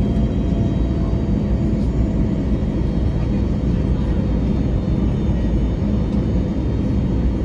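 Steady cabin noise of an Airbus A321neo descending on approach, heard inside the cabin by the wing: a constant low rumble of airflow and the CFM LEAP-1A engines, with faint steady whining tones above it.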